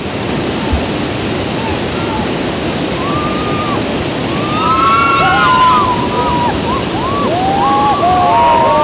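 Whitewater rapids rushing steadily as an inflatable raft goes down a drop. From about three seconds in, several rafters give long, overlapping yells.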